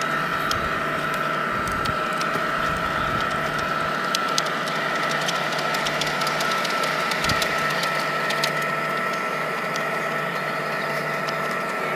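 Large-scale garden model freight train rolling past close by: a steady rumble of wagon wheels on the track with a steady high whine and a low hum, broken by scattered sharp clicks.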